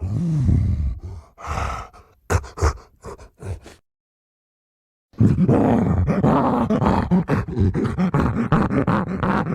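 Giant gorilla vocal sound effects: a deep groan, then a few short grunts. After a gap of about a second, a long loud run of roaring grunts follows.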